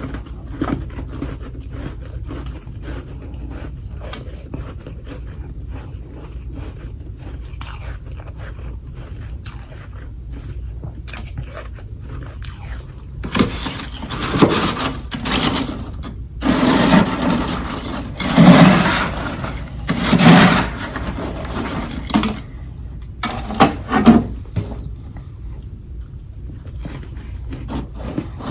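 Someone biting and chewing chunks of humidifier-water freezer frost. Small crackling chews come first, then a run of loud crunching bites about halfway through, and two more short crunches near the end.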